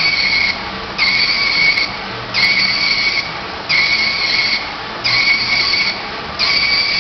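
Emissions analyzer's built-in printer printing out a test result. It buzzes in regular passes of just under a second each, about one every 1.3 s.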